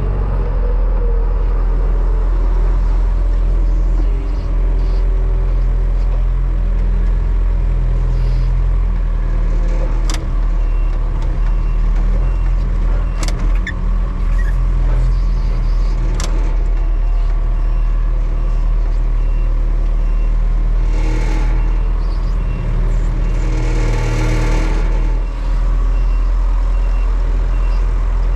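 Farm tractor engine running steadily. Three sharp clicks come about a third of the way through and near the middle.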